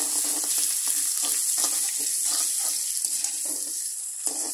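Small pieces of food deep-frying in a wok of hot oil with a steady sizzle, while a metal slotted spoon stirs and scoops them in repeated strokes.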